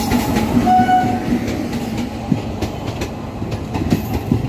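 Electric-hauled passenger train running past along the platform: a steady rumble with wheels clacking over the rail joints, and a brief thin squeal about a second in.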